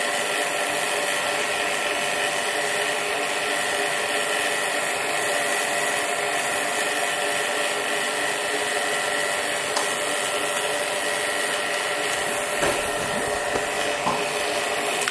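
Rotary-vane vacuum pump running steadily as it holds the vacuum in a homemade electron accelerator tube: an even mechanical noise with a steady hum of several tones. It cuts off abruptly at the end.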